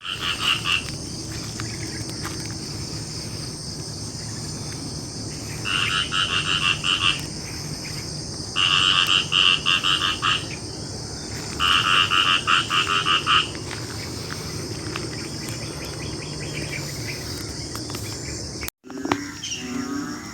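Frogs calling in rapid pulsed trills, four calls of about a second and a half each, over a steady high-pitched chorus of insects.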